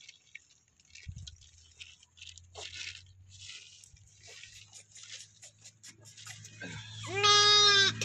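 A lamb bleats once, loudly and at a steady pitch, near the end, after several seconds of light scuffing and crunching of hooves and muzzles on stony ground.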